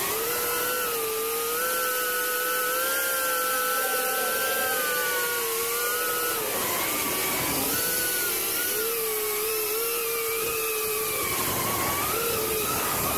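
Ducted FPV drone's brushless motors and propellers whining in flight, the pitch rising and falling together as the throttle changes, with two dips about six and eleven seconds in.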